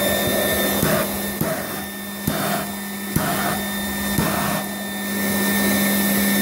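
Benchtop charcoal gasifier with a steam superheater, a steady rush of steam and gas over a steady hum. From about a second in to about five seconds the rush breaks into uneven puffs with a few sharp knocks, about two a second, as the outlet flame sputters and flares. This is a sign of the device being over-steamed, which the operator suspects.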